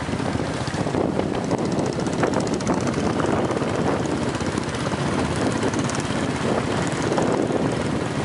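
Motorcycle engines running steadily at road speed: a rapid, even putter under a rush of air noise.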